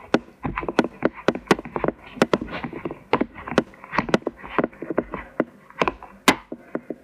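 A metal spoon stirring stiffening flour-and-water dough in a plastic tub, knocking and scraping against the tub's sides and bottom in quick, irregular clicks, several a second.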